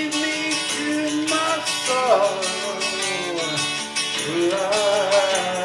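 Acoustic folk-ballad music: acoustic guitar accompaniment under a melody line that glides up and down between held notes.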